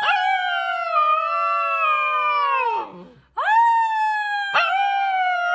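Husky puppy howling: two long howls, each rising quickly, holding steady and falling away at the end, with a brief pause about three seconds in.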